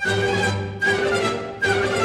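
Orchestral background music with bowed strings, a new phrase starting about every eight-tenths of a second.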